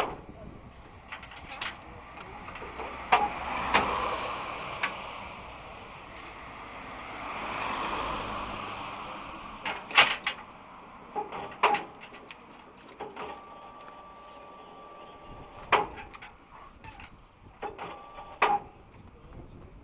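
Scattered sharp clicks and knocks of bungee gear, ropes, harness fittings and the metal launch frame, being handled, loudest about halfway through, over two slow swells of rushing noise and faint voices.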